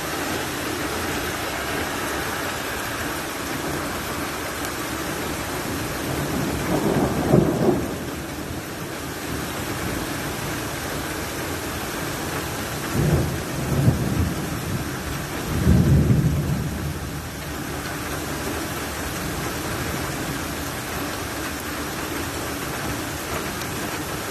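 Rain falling steadily, with short low rumbles about seven seconds in and three more between thirteen and seventeen seconds in.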